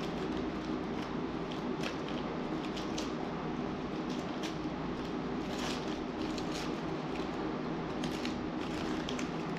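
Paper wrapping of a piston ring set rustling and crinkling in gloved hands as the rings are unwrapped, in short irregular crackles over a steady background hum.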